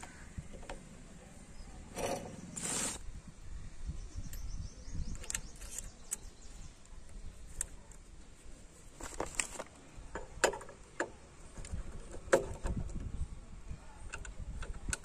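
Scattered metallic clicks and knocks of hand work on a TVS 50 moped, with a longer scraping rasp a couple of seconds in. A nut is fitted on the rear belt pulley and worked with a ratchet spanner.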